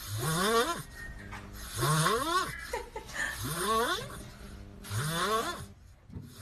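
A puppy sucking on a feeding bottle, making a noisy snoring squeak with each breath. The squeak rises in pitch each time and comes four times, about a second and a half apart.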